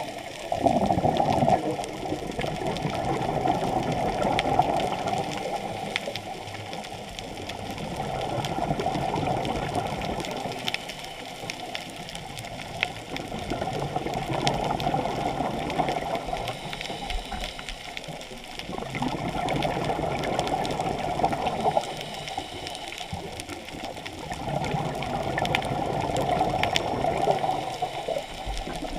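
Muffled rushing and gurgling of water heard underwater through the camera housing, swelling and fading in regular surges every five or six seconds.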